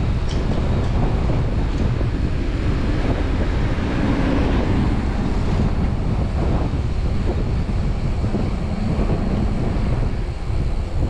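Steady wind noise buffeting the microphone while riding an electric mountain bike, a low rumble that dips briefly near the end.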